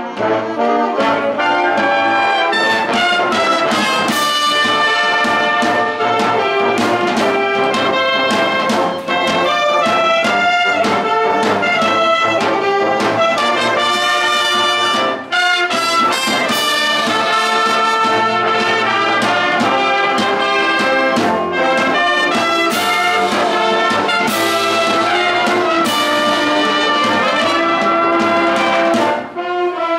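A wind band playing live, with the brass (trumpets and trombones) in the lead over sharp percussion hits. The music carries on with a brief dip about halfway through.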